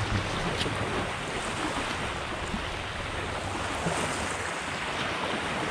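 Steady rushing noise of wind and water, with no clear rhythm and a few faint ticks.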